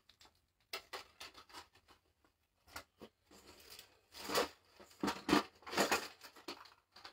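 Fishing-lure packaging rustling and crinkling as it is handled: a string of irregular rustles and scrapes, loudest between about four and six seconds in.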